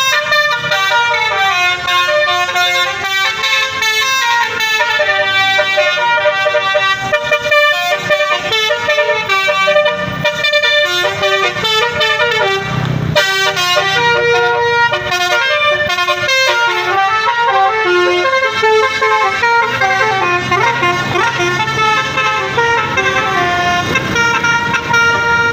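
Buses' musical 'telolet' (basuri) air horns playing melodies, the horn notes stepping up and down in tunes with a brief break about halfway through.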